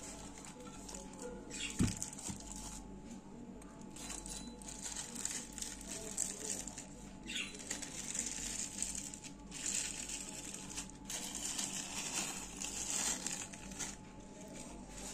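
Greased baking paper being peeled off a sticky slab of palm-fruit barfi, crinkling and rustling in several stretches. A dull thump about two seconds in.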